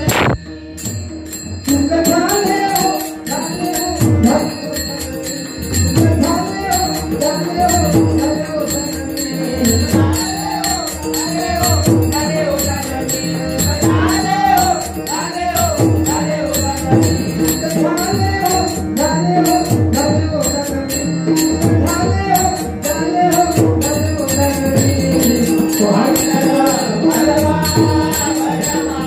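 Traditional dabalbari bhajan music: a melody over a steady held drone tone, with small hand cymbals jingling and a drum keeping a regular beat. The music breaks off for a moment at the start, then runs on steadily.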